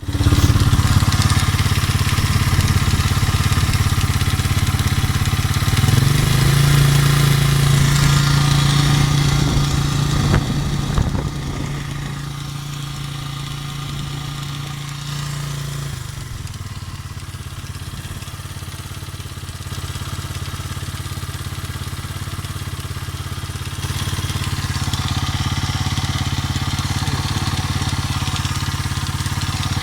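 Racer Forester RC200LT motorcycle's single-cylinder engine running near idle, its speed shifting a few times and quieter from about eleven seconds in. It has a knock in the engine whose cause the owner is trying to find.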